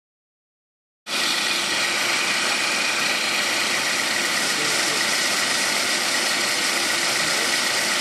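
Ford Mondeo III's Duratec 2.0 four-cylinder petrol engine running steadily at idle. It cuts in abruptly at full level about a second in, after silence.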